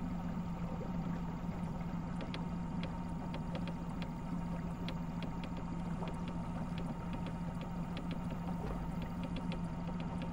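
A small boat's motor running steadily at low speed, a constant even hum, with faint scattered ticks.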